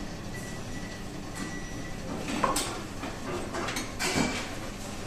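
Wooden spatula scraping thick vegetables in white sauce into a ceramic plate over a steady background hum, with a few short knocks and clatters of the spatula and plate from about halfway in.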